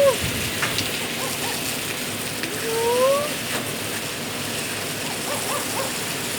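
Steady hiss of falling or spraying water. Over it are a short rising-and-falling call right at the start and a longer rising call about two and a half to three seconds in.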